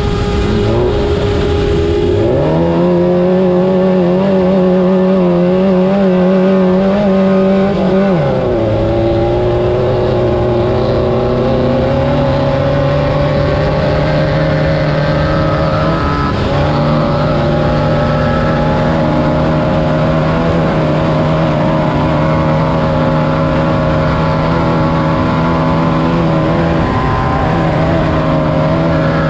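Class 9 race car's air-cooled VW four-cylinder engine running hard off-road. It rises sharply in revs about two seconds in, holds high, then drops to a lower, fairly steady pitch about eight seconds in, over a constant noise of wind and the running car.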